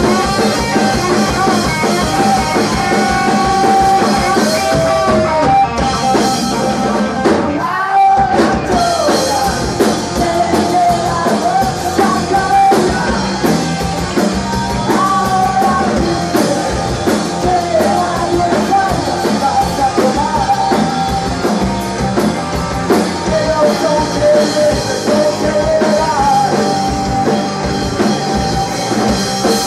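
Live rock trio playing loudly: electric guitar, electric bass and drum kit, with a brief stop about eight seconds in before the band comes back in.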